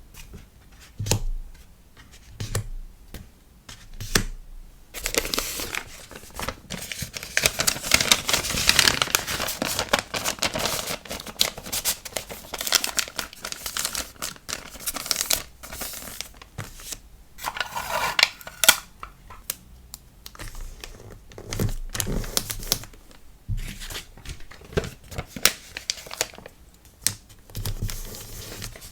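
Packaging being handled while packing an order of stickers: a few sharp taps at first, then long spells of crinkling and rustling of paper and plastic, with tearing sounds.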